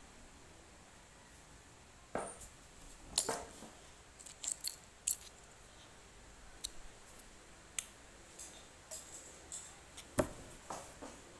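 Irregular sharp clicks and crinkles of a small plastic snack wrapper being handled and folded in the fingers, with the loudest snaps about three seconds in and near the end.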